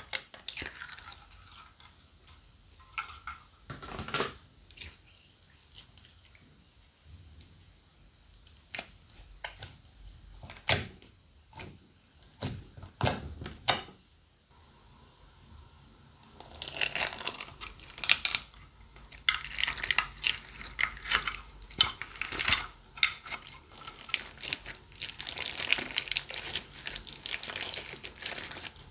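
Hands working slime: scattered sticky clicks and pops for the first half, then from a little past the middle a dense, continuous crinkly crackling as the slime or its ingredients are squeezed and mixed.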